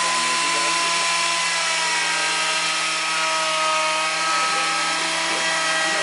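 Wood lathe running: a steady electric motor whine with several tones over a broad hiss.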